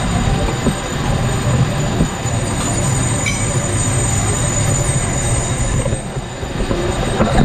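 Steady mechanical running noise of shop machinery, with a thin high-pitched whine over it.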